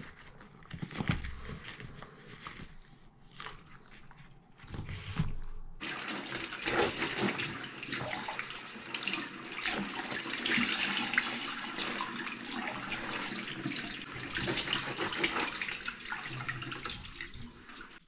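Bathroom sink tap running, its water splashing over rubber gloves being rinsed by hand and into the basin; the flow starts about six seconds in and stops just before the end. Before it, a few short knocks and rubs of handling.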